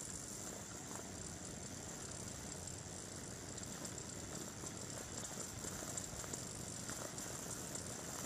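Magic Chef electric multi-cooker coming up to pressure: a faint, steady hiss of steam escaping around the float-valve pin, with light bubbling and scattered small crackles. The pin has not yet popped up, so the cooker has not yet reached cooking pressure.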